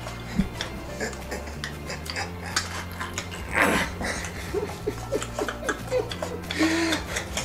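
Wooden chopsticks clicking and scraping in cardboard takeout boxes as two people eat, with a brief rushing noise about halfway through, over low background music.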